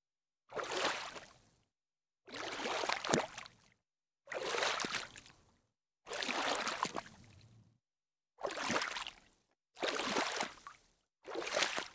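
Water splashing in a series of about seven separate splashes, each lasting about a second, with dead silence between them.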